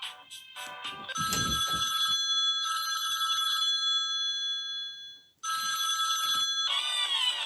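Samsung Galaxy Europa (GT-I5500) ringtone played through the phone's speaker: a bell-like ring of several steady high tones starts about a second in, with a low thump as it begins. It breaks off after about five seconds, rings again at once, and gives way near the end to a sliding, many-note tune.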